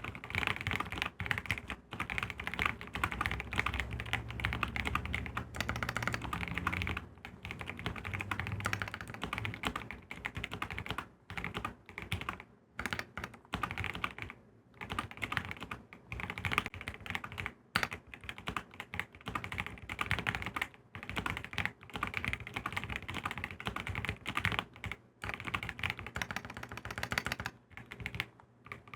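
Typing on a Keychron Q6 Max full-size mechanical keyboard with Gateron Red Pro linear switches: fast, continuous runs of keystrokes with short pauses between bursts.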